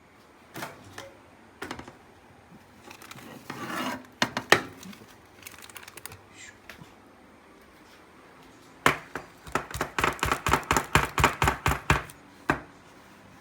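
Kitchen knife chopping on a cutting board: a few separate clicks and knocks and a brief scrape, then a quick, even run of about a dozen chops near the end.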